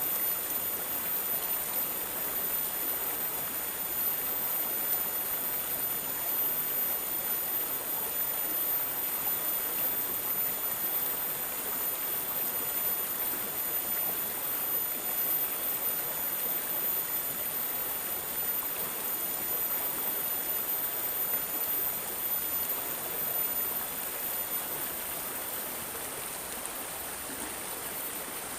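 Water gurgling and trickling steadily, like a small stream running over stones, with a faint, very high steady tone above it.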